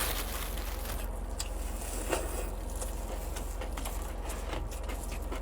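A person eating noodles in crayfish sauce: scattered short slurps, chewing and mouth clicks over a steady low hum.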